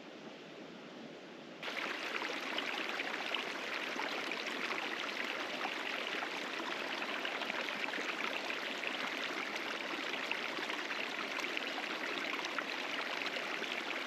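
Steady rushing of running water, a small stream burbling, which jumps abruptly louder about a second and a half in.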